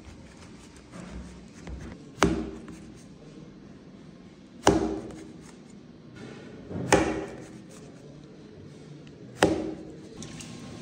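Large kitchen knife chopping down through pistachio dürüm rolls and striking the metal baking tray beneath: four sharp clanks roughly two and a half seconds apart, each with a brief metallic ring.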